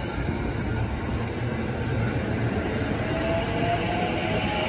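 JR E233-series electric commuter train pulling out of the station, its wheels rumbling steadily on the rails. From about three seconds in, a faint rising motor whine joins as it gathers speed.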